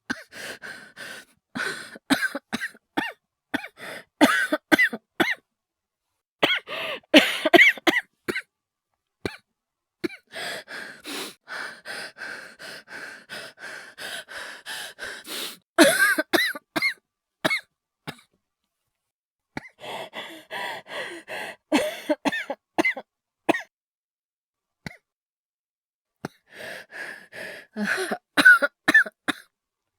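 A man's voice acting a sick person's coughing: several fits of short, rapid coughs with ragged breathing between them, broken by brief pauses. The coughing is performed, not real illness.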